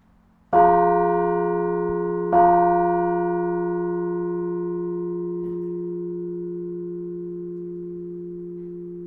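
Carillon bells struck twice, about two seconds apart, each stroke ringing on and slowly dying away.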